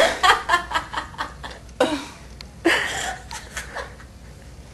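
Young women laughing giddily: a quick run of breathy chuckles at the start, then two more breathy laughs about two and three seconds in, trailing off near the end.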